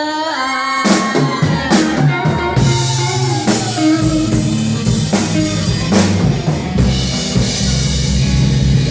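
Live band music: a held note slides down over the first couple of seconds, then the drum kit takes over with bass drum, snare hits and cymbal crashes over a steady bass line.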